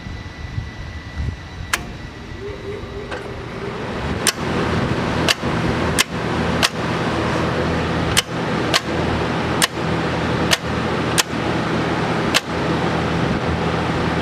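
TIG welder powered up: a steady fan and mains hum that swells about four seconds in and then holds, broken by about a dozen sharp clicks at uneven intervals.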